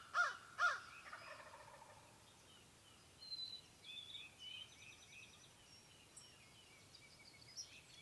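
A wild turkey gobbler gobbles about a second in: a short, rapid, falling rattle. It comes just after two loud, harsh bird calls at the very start. Small birds chirp through the rest.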